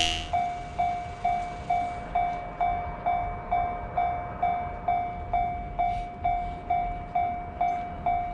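Japanese railway level-crossing warning bell ringing, an evenly repeated 'kan-kan' tone at about three strikes a second, over steady low background noise.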